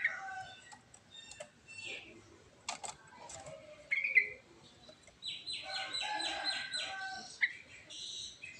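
Yellow-vented bulbul singing: short whistled chirps and varied phrases, with a fast run of repeated notes from about five to seven seconds in.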